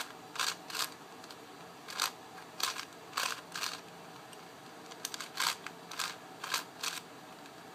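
Shengshou 5x5x5 speed cube, new and still factory-lubricated, being turned by hand: its plastic layers clack as they snap into place, in irregular turns, some in quick pairs, with short pauses between. The owner finds it turns a little rough out of the box.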